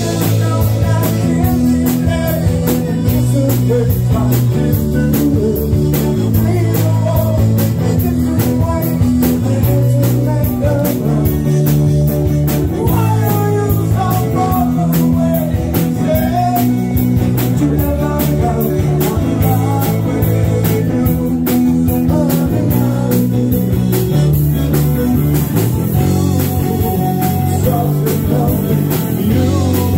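Live rock band playing: electric guitars, bass guitar and a drum kit, with bass notes changing every second or so under a steady drum beat and gliding guitar or vocal lines in the middle of the sound.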